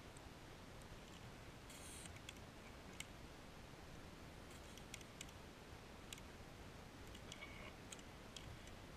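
Faint clicks of airsoft pistols and magazines being handled, with a short hiss about two seconds in from a gas can charging a gas pistol magazine.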